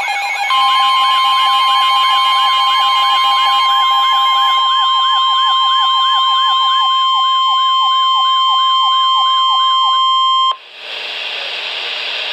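A weather radio's steady warning alarm tone, held for about ten seconds, sounds over a rapidly repeating rise-and-fall siren-like alarm that fades out partway through. The tone cuts off suddenly, leaving a radio static hiss.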